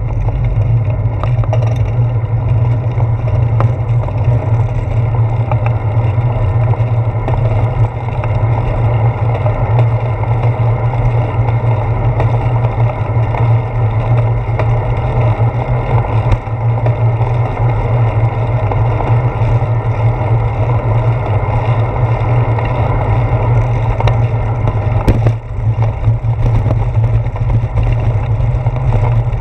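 Loud, steady wind rumble on the microphone of a handlebar-mounted GoPro Hero 4 as a bicycle rides along, with the hiss of its tyres on wet pavement underneath.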